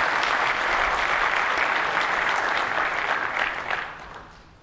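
Audience applauding, a dense clatter of many hands clapping that dies away over the last second.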